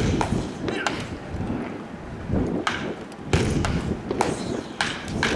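Baseball bats striking pitched balls in batting practice: a series of sharp cracks at uneven intervals, about seven or eight in all, two of them coming close together just after the middle.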